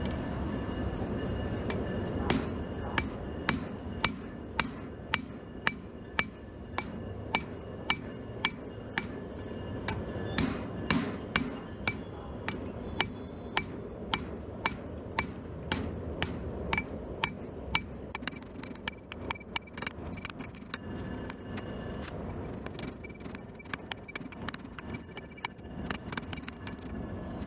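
Hand hammer striking hot steel on an anvil, forging blacksmith tongs: a run of ringing blows at roughly one to two a second, with short pauses, over a steady low roar from the forge.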